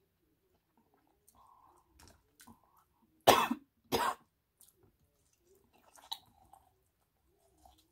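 A woman coughs twice in quick succession, a little over half a second apart, about three seconds in. Faint chewing and mouth sounds come before and after the coughs.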